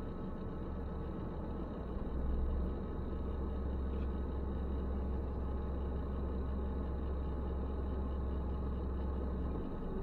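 Steady low rumble of a car driving along a road: engine and tyre noise heard from inside the cabin. It swells slightly about two seconds in.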